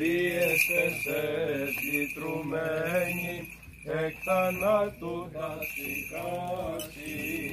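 Byzantine chant: a single voice singing an Orthodox liturgical hymn in bending, melismatic phrases with short breaths between them, over a steady high ringing.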